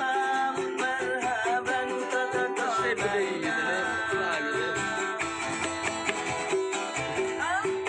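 A busker singing with a wavering, melismatic voice over a strummed guitar-like string instrument keeping a steady rhythm.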